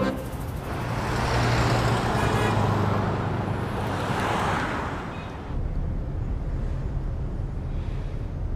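Road traffic: a vehicle passes close, its engine and tyre noise swelling and fading over about five seconds. It is followed by the steady low rumble of a moving bus heard from inside.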